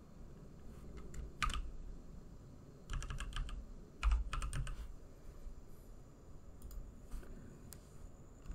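Computer keyboard keystrokes as a password is typed: a single key about a second and a half in, then two quick runs of keys around three and four seconds in, followed by a few fainter single clicks near the end.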